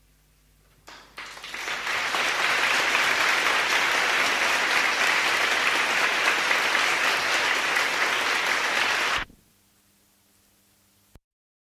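Audience applauding, building up about a second in and cut off abruptly near the end, leaving a faint hum and a small click.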